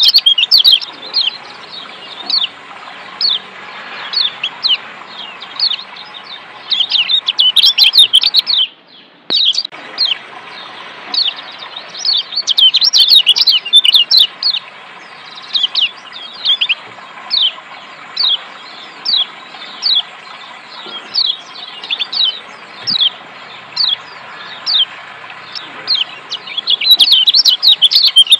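Kecial kuning (yellow white-eye, Zosterops) giving rapid 'ciak' chirps, each a short falling note, in quick bursts over a steady rush of running water. Both sounds drop out briefly about nine seconds in.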